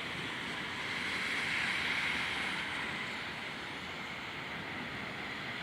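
Steady rushing noise of thunderstorm wind and rain, swelling gently about a second in and easing off again after about three seconds.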